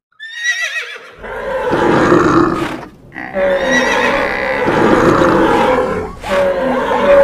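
Stampede of animal sound effects: a horse whinnies at the start, then a dense mix of animal roars and calls runs on, briefly dropping away about three seconds in.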